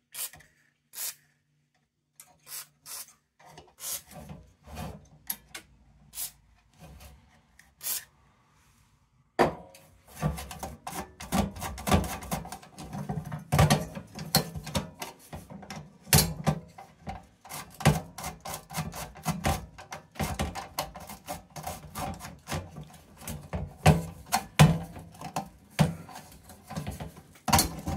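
The seized wick assembly of an old tin kerosene lantern being worked back and forth to free it. Metal parts click and scrape: scattered clicks at first, then from about nine seconds in a continuous rubbing and scraping with many small clicks.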